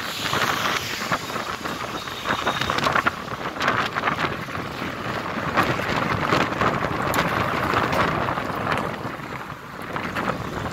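Wind buffeting the microphone of a moving vehicle, over steady road and traffic noise. It is a rough, gusty rush that comes and goes in uneven puffs.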